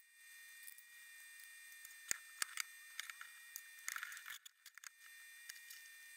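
Faint scattered clicks and metallic taps of hand tools on the steel frame of a hydraulic press as its bolts are fitted and tightened. The sharpest knocks come about two seconds in, with a busier patch of rattling clicks around four seconds in.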